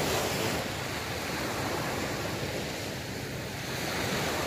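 Small waves breaking and washing up a sandy beach, swelling louder at the start and again near the end, with wind on the microphone.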